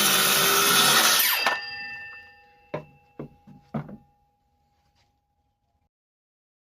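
Power saw cutting through a wooden crate runner, stopping about a second and a half in and ringing faintly as it winds down, followed by three sharp knocks of wood.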